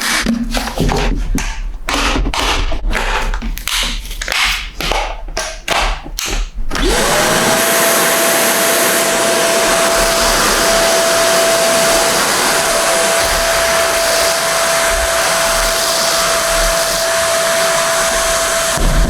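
Kärcher WD 3 wet-and-dry vacuum cleaner: first a run of quick plastic clicks and handling noises, then about seven seconds in its motor is switched on. The motor spins up with a fast-rising whine and settles into a loud, steady run with an even whine.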